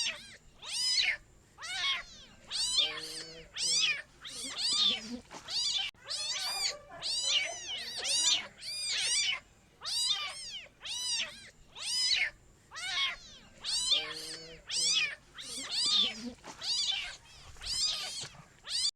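Kitten meowing over and over in high-pitched calls, about one or two a second, each rising then falling in pitch. A lower, steadier call comes in twice.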